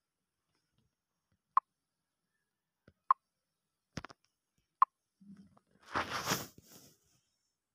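Short, soft clicks of taps on a phone's touch screen, three spaced about a second and a half apart, then a brief rushing noise about six seconds in.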